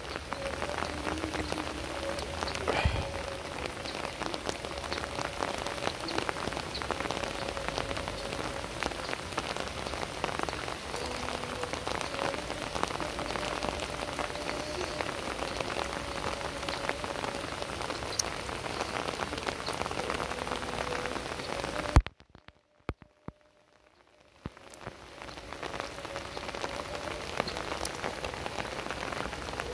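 Heavy, unbroken rain falling on the surface of a river, a dense steady patter of drops. Near the end a sharp click, then the sound drops out to near silence for about two seconds before the rain fades back in.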